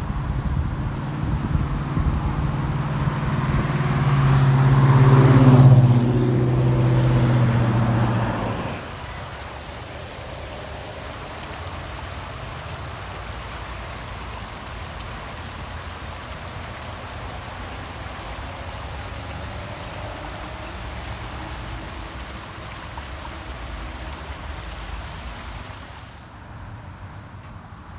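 A motor vehicle passes close by on the road, its engine hum building to its loudest about five seconds in and dropping away about nine seconds in. A steady, even rushing noise follows.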